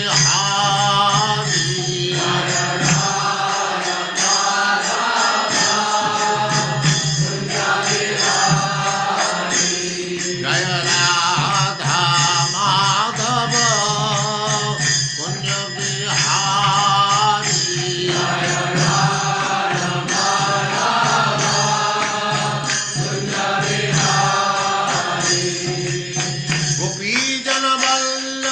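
Devotional mantra chanting sung to music: a voice repeating short melodic phrases over a steady low drone.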